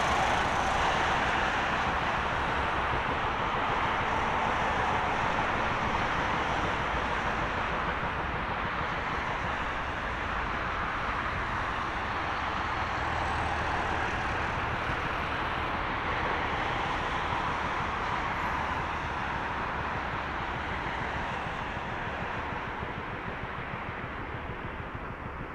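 Boeing 747-400F freighter's four jet engines at takeoff thrust during the takeoff roll: a steady rushing noise that eases a little near the end.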